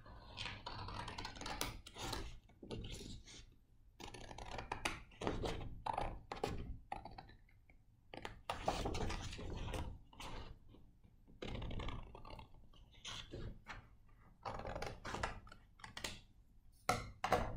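Scissors cutting through a sheet of colored construction paper: a long run of short, crisp snips in irregular clusters, with the paper rustling as it is turned between cuts.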